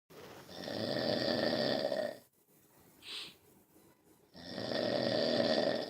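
Someone asleep snoring: two long snores, each about a second and a half, with a short breath out between them.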